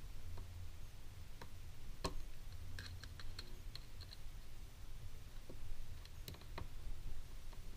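Scattered small, sharp clicks and taps of tools and plastic parts as a smartphone is worked on by hand, with a quick run of clicks about three seconds in, over a low steady hum.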